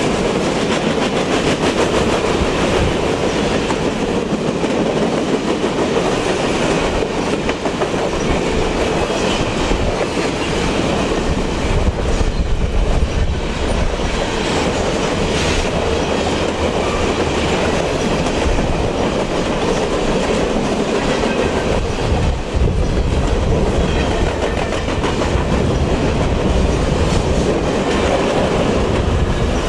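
Freight train of covered hopper cars rolling past close by, steel wheels clattering and clicking on the rail over a steady loud rumble.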